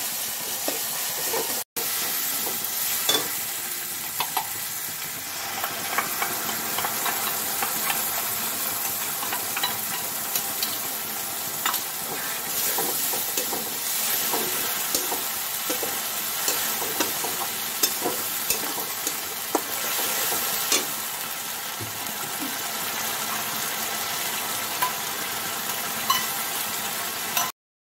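Onion, tomato and ground spice paste sizzling as they fry in mustard oil in a kadai, while a metal spatula stirs and scrapes through it, with frequent short clicks and scrapes of spatula on pan over the steady sizzle.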